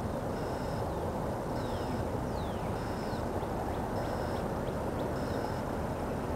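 Bird calls over a steady low rumble. A short high whistled note repeats about once a second, with a few downward-sliding calls about two seconds in and some brief chirps after.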